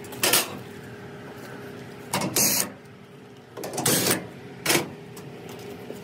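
Sheet-metal panels of a Maytag Bravos XL dryer cabinet being handled during teardown: four separate clunks and scrapes, the longest about two seconds in, over a faint steady hum.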